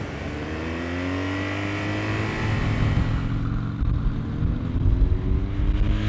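Motorcycle engines accelerating, the engine note rising in pitch as the bike pulls. About halfway through the sound changes to another bike, whose note climbs again.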